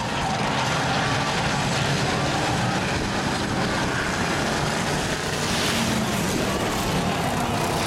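A pack of bomber-class stock cars racing together, their engines running steadily under power as they pass.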